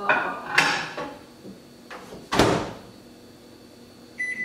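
Over-the-range microwave door being opened and shut: two clunks in the first second, a loud slam about two and a half seconds in, then a short keypad beep near the end.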